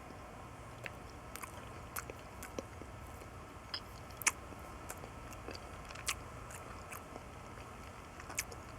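A person chewing a mouthful of hard-boiled egg with mayonnaise: soft, irregular wet mouth clicks and smacks, the sharpest a little past four seconds in.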